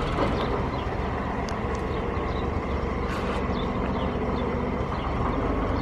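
Farm machinery engine running steadily, a low rumble with no change in pace.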